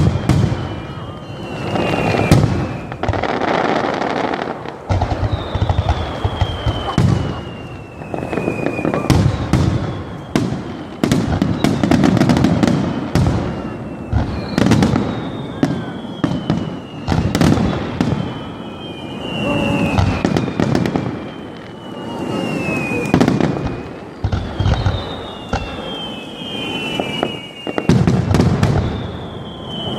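Fireworks going off at close range: repeated deep booms and sharp crackling, with a whistle falling in pitch every few seconds.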